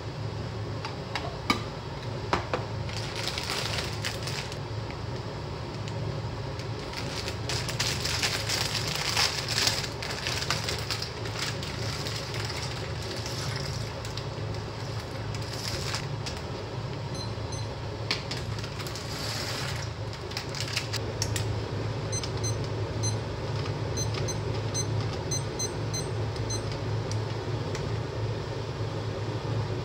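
Cooking sounds at a gas hob over a steady low hum. Salt goes into a saucepan of boiling water with a few light clicks of the spoon, and dry macaroni is poured in from its bag in several short rattling rushes. Near the end, chopsticks stir the pasta and tap lightly and evenly against the pan.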